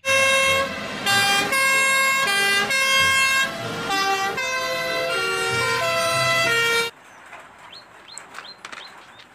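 Two-tone fire engine sirens stepping between high and low notes about twice a second, with more than one siren overlapping, cut off abruptly about seven seconds in. Faint clicks and rustles follow.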